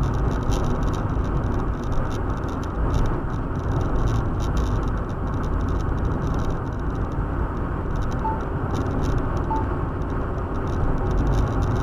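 Steady road and engine noise of a moving car heard from inside the cabin, an even low rumble with no change in pace.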